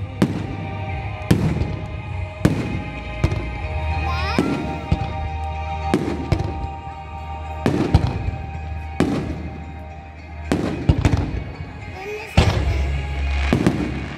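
Fireworks shells bursting in a quick run of sharp bangs, about a dozen spread at intervals of roughly a second, each followed by a short echo.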